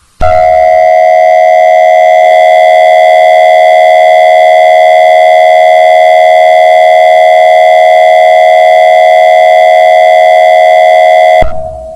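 Emergency Alert System attention signal: a loud, steady electronic dual tone with a buzzy edge, held without any change in pitch for about eleven seconds and then cut off.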